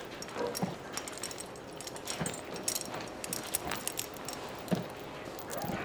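Light jingling and clicking of a draft horse's bridle fittings, metal bit, curb chain and buckles, as the bridle is put on and the curb chain is hooked up.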